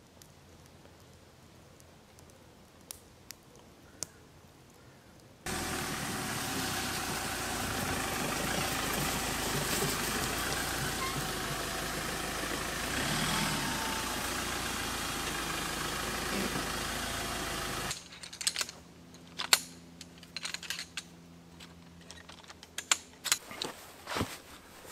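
Faint ambience with a couple of clicks, then from about five seconds in the steady, loud running of a pickup truck's engine and tyres as it drives in, cutting off suddenly after about eighteen seconds. Then scattered clicks and knocks as a folding chair is set up.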